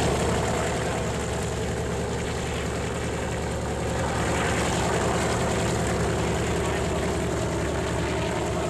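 Warbird radial piston engine running steadily on the ramp during its warm-up, a low, even propeller-and-exhaust drone.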